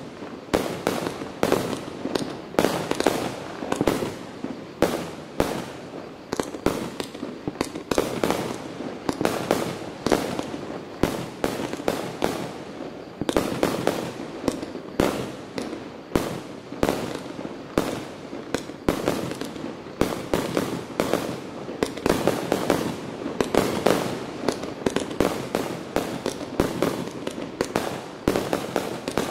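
Pyrotrade 'Wave Power' firework firing aerial shots in quick succession, a rapid string of sharp reports at about two to three a second that runs on without a pause.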